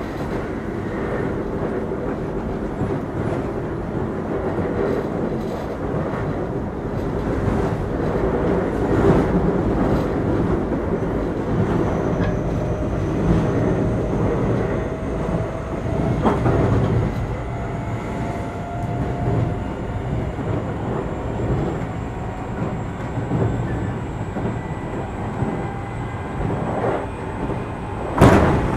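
Keio 8000 series electric train with Hitachi SiC inverters, heard from inside the car while running: steady wheel and rail noise with rail-joint clatter. From about the middle, faint motor whines climb slowly in pitch. Near the end comes a single sharp loud knock from the wheels.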